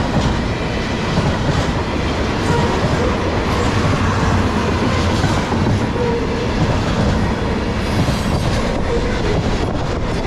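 Container cars of a CSX freight train rolling past at track level: a steady, loud rumble of steel wheels on rail, with clicks as the wheels pass the rail joints, more distinct near the end.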